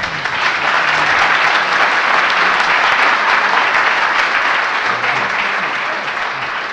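Large indoor audience applauding steadily, starting abruptly and tapering slightly near the end.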